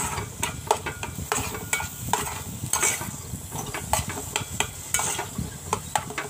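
A metal spoon stirring chopped vegetables sautéing in a metal pot, with repeated irregular clicks and scrapes of the spoon against the pot over a light sizzle.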